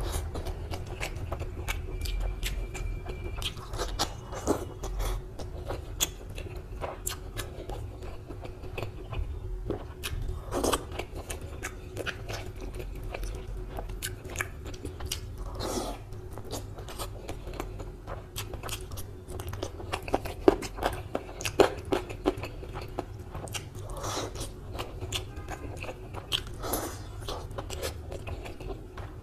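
Close-miked wet chewing and smacking of a mouthful of rice pulao and curry, with the clicks and squelches of fingers mixing the rice by hand.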